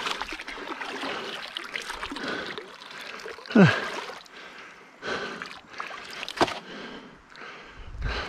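Shallow stream water splashing and sloshing as a person wades through it and steps up onto a muddy bank. There is a louder sudden splash about three and a half seconds in and a sharp knock about six seconds in.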